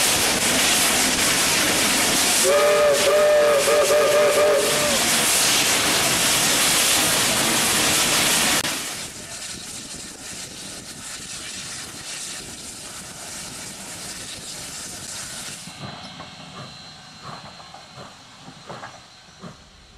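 Steam locomotive running with a loud, steady rushing hiss; its multi-note chime whistle sounds in a quick string of short toots about three seconds in. About nine seconds in the sound drops sharply to a much quieter background with faint clicks.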